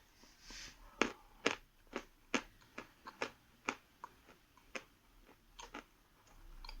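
A person chewing a piece of soft Khrapovsky chalk in the mouth: a dozen or so short, sharp crunches, about two a second, that stop shortly before the end.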